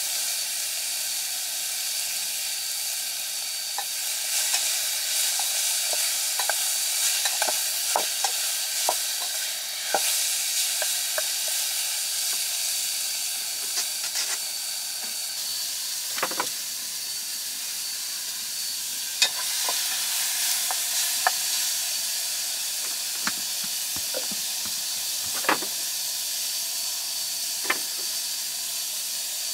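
Food sizzling as it fries in a pan: a steady hiss, broken by scattered sharp clicks and taps of a utensil stirring it.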